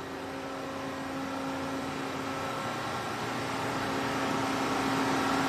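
CNC waterjet machine running: a steady hiss with a constant hum, growing steadily louder.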